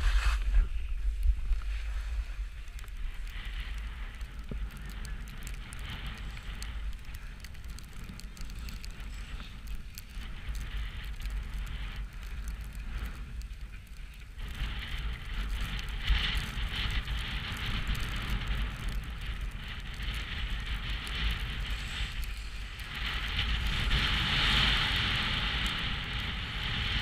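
Skis hissing and scraping over snow during a descent, with wind buffeting the camera's microphone. The scraping grows louder about halfway through and is strongest near the end.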